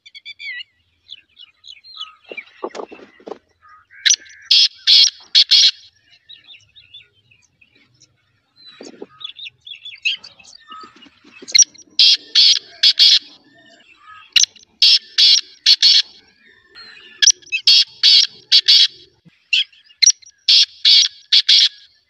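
Black francolin (kala teetar) calling: loud, harsh phrases of four or five rapid notes, one about four seconds in and then four more about every three seconds from about eleven seconds on, with fainter bird chirps between them.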